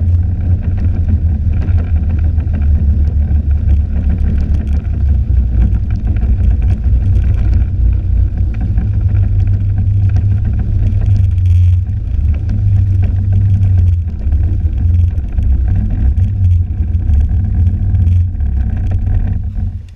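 Snowmobile engine running under way across snow, a loud steady drone.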